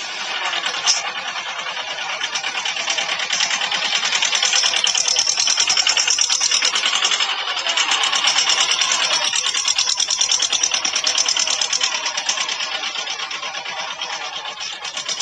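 Mahindra Jivo 245's two-cylinder diesel engine running under load as the tractor pulls a tiller through the soil, a steady rapid clatter that swells and eases slightly.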